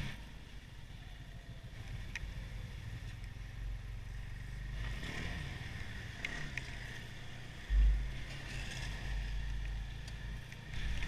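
Snowmobile running along a trail, a steady low engine drone mixed with rumble and rush, with one loud low thump a little under eight seconds in.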